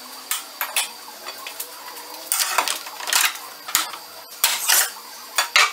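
Steel pry bar clinking and scraping against the lower control arm and steering knuckle, levering the control arm down out of the knuckle: a run of irregular metallic clinks and scrapes with a dull knock a little before four seconds in.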